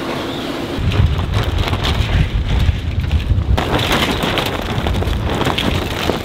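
Wind buffeting the microphone with a heavy rumble from about a second in, joined partway through by a sail flapping and crackling in the wind.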